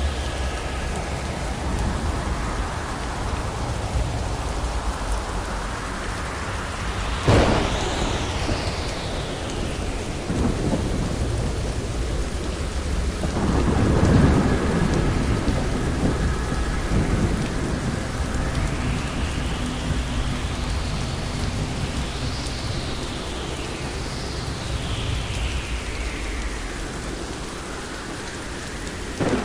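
Thunderstorm: steady rain throughout, with a sharp crack of thunder about seven seconds in and a rolling rumble of thunder swelling around the middle. Another sharp crack comes right at the end.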